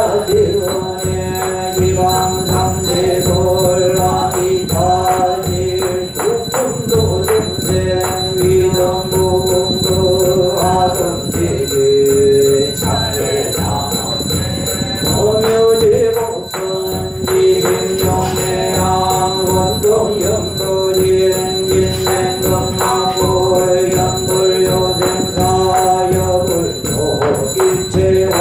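Korean Buddhist yeombul chant sung in long held notes that step slowly between a few pitches, over a bell jingling in an even rhythm.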